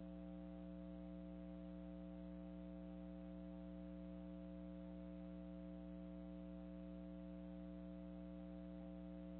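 Faint, steady electrical hum made of several fixed tones, with no other sound.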